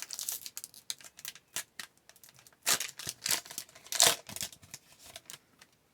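Trading card pack wrapper being torn open and the cards handled: irregular rips, crinkles and clicks, loudest around three and four seconds in.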